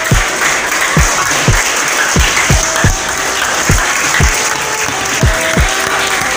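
A group of people clapping their hands continuously, over background music with a deep beat of falling bass notes about twice a second.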